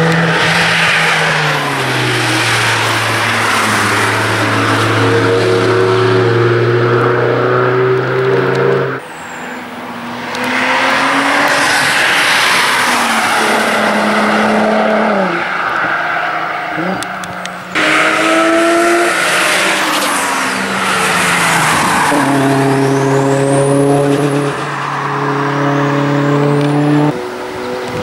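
Sports car engines driven hard past on a racetrack, one car after another, revs rising and falling through the corners over tyre and road noise. The sound changes abruptly twice, about a third and two-thirds of the way through, as one car's pass gives way to the next.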